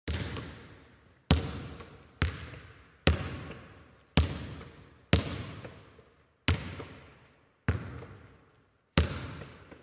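A basketball bouncing slowly, about one bounce a second, nine times in all, each bounce echoing and fading away before the next.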